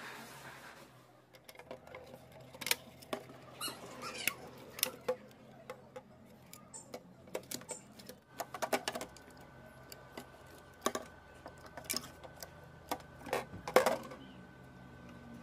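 Irregular clicks, taps and light knocks of small parts of a cassette player mechanism being handled, with a few short squeaks. A faint steady hum with a thin high tone sets in about eight seconds in.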